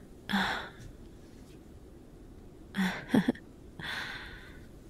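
A woman's breaths and a sigh, close to the microphone, with a short hum-like vocal sound about three seconds in.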